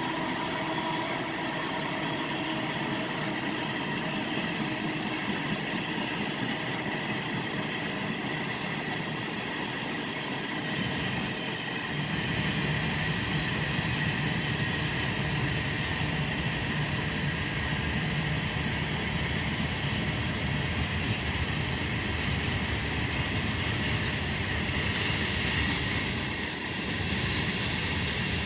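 Freight train's cars rolling steadily past on the track.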